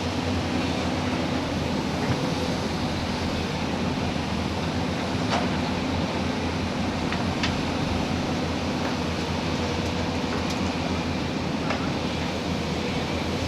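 Excavator's diesel engine running steadily with a constant hum, with a few light knocks about five, seven and ten seconds in.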